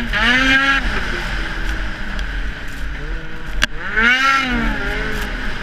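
Ski-Doo snowmobile engine at racing speed, its pitch rising and falling twice as the throttle is opened and eased off, with wind rushing over the camera. A single sharp click sounds about two-thirds of the way through.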